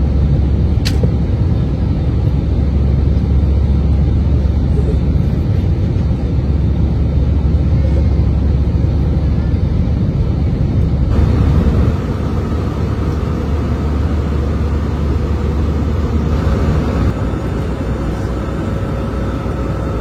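Airbus A320 cabin noise in flight after takeoff: a steady low rumble of engines and airflow, easing somewhat about twelve seconds in, with a faint steady whine coming in later. A single sharp click sounds about a second in.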